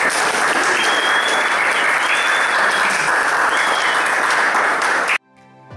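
Audience applauding steadily, cutting off suddenly about five seconds in.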